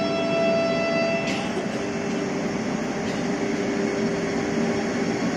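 Vande Bharat Express electric trainset rolling along the station platform, its wheels and running gear giving a steady rumble. A steady high multi-note tone cuts off sharply about a second in, while a lower hum carries on.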